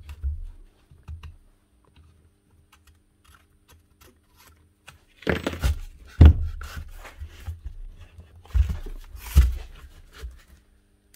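Scattered clicks, clunks and a few low thumps as a rotary hammer is handled and worked on at the bench. The noises are busiest about five to seven seconds in and again around nine seconds, with quiet stretches between.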